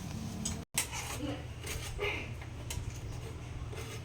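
A few light clicks and taps of plastic kitchenware being handled, over a low steady hum, with a brief dropout under a second in.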